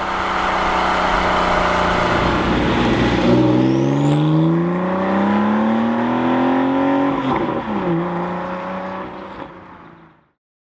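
Porsche 991.2 Carrera 4S twin-turbo flat-six, through Fabspeed sport headers and sport cats with the exhaust valves open, running steadily, then pulling hard through a gear with a long rising note and a faint rising turbo whistle. About seven seconds in the pitch drops sharply at an upshift, and the sound fades out near the end.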